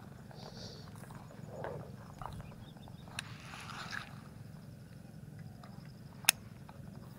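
Footsteps through grass and vegetation, with short taps and a brief rustle of stems a little past three seconds, over a low steady hum. A single sharp click about six seconds in.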